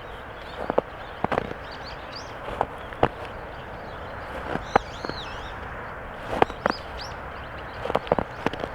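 Footsteps crunching and squeaking in snow: sharp, irregular crunches, about one or two a second, as the snow is packed underfoot.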